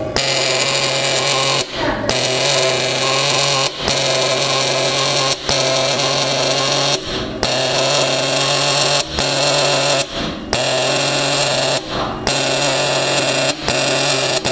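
SHUNER portable pneumatic dot peen marking machine, its pin hammering rapidly into a metal plate as it marks a line of characters. A steady buzz that breaks off briefly about every one and a half to two seconds as the head moves from one character to the next.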